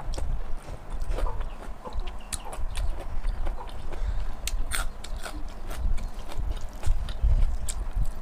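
Close-up chewing and lip-smacking of pork and rice eaten by hand, heard through a lapel microphone: many sharp wet clicks over irregular low thumps.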